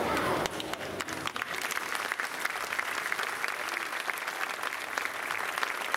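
An orchestra with soprano stops on its final note about half a second in, then audience applause: a dense, even patter of clapping.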